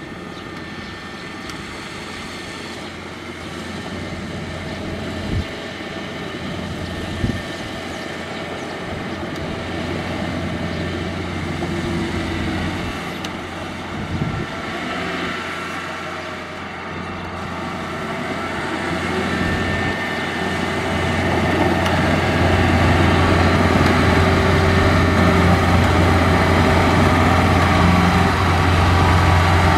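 Kubota crawler combine harvester's diesel engine running steadily as the machine tracks through mud, growing louder over the last third as it comes close. A few short sharp knocks stand out in the first half.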